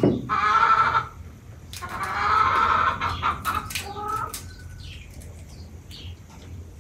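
Chickens calling: a short call, then a longer one about two seconds in, and a fainter one near the four-second mark, with a few sharp clicks between them.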